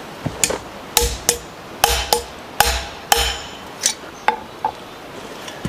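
Hammer blows on a steel anvil, straightening a bent pair of brake pliers: about a dozen sharp, irregularly spaced strikes, each with a short metallic ring.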